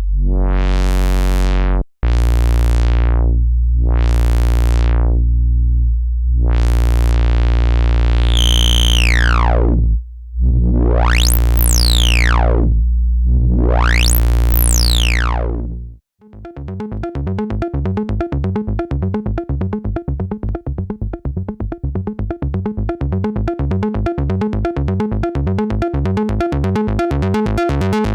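Modular synthesizer note run through a Steve's MS-22 MS-20-style low-pass filter, swept slowly open and shut again and again on a low held tone. Later in the sweeps the resonance is turned up, so a whistling peak slides up and down. About halfway through it gives way to a fast sequenced pattern of short filtered notes.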